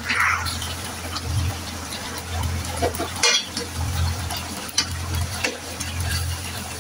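Chicken simmering and sizzling in a thick sauce in a nonstick frying pan while a metal spatula and spoon stir it, with scrapes and short clicks against the pan, one sharper click about three seconds in. A steady low hum runs beneath.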